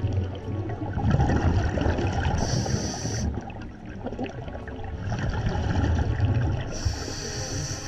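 Scuba diver breathing through a regulator underwater: a spell of exhaled bubbles, then the short hiss of an inhalation, twice.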